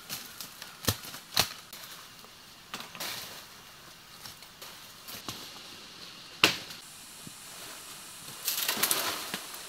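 Machete blows chopping into wood: a few sharp separate chops, the loudest about six and a half seconds in, then a quick flurry of crackling, snapping brush near the end.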